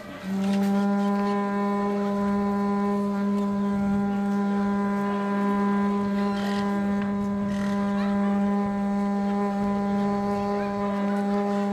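Conch shell horn (a Moluccan tahuri) blown in one long, steady blast on a single low note, held for about eleven seconds.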